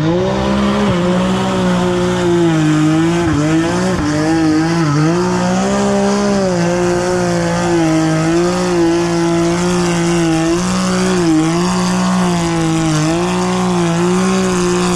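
A mud-racing vehicle's engine revs up sharply at the start, then is held at high revs with small dips and recoveries: a sustained full-throttle run through a mud hole.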